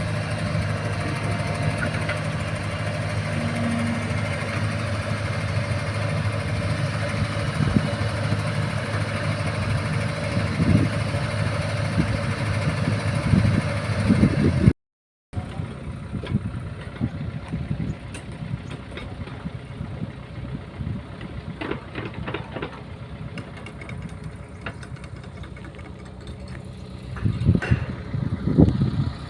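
Excavator's diesel engine running steadily. About halfway through the sound cuts out for a moment, then comes back quieter, with scattered knocks and a louder patch near the end.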